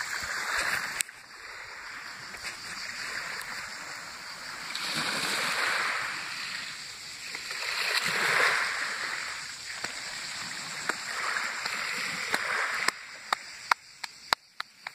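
Small waves washing up on a pebble beach, swelling and falling back every few seconds. A run of sharp clicks comes near the end.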